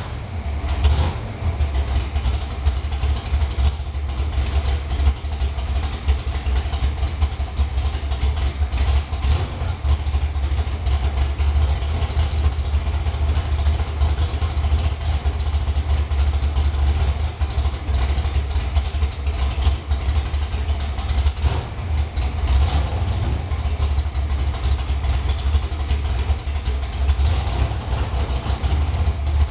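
Race truck's engine idling steadily through its long-tube headers, a loud, even low rumble that keeps running throughout.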